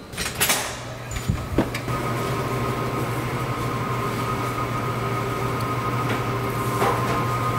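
A door opens with a short rush of air and a few knocks. Then comes the steady hum of the cleanroom's ventilation and air-handling fans, with a low drone and a thin whine over it.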